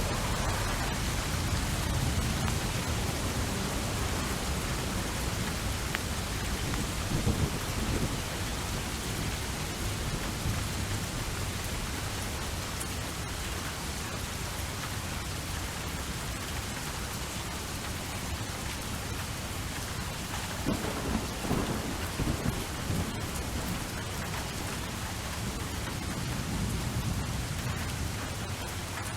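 Steady rain with thunder rumbling through it. The thunder swells twice, about a quarter of the way in and again about two-thirds of the way through.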